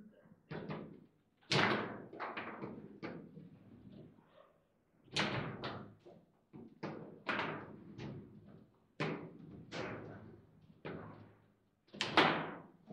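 Table football being played: irregular sharp knocks and clacks of the ball, the rod figures and the rods against the table, the loudest near the end.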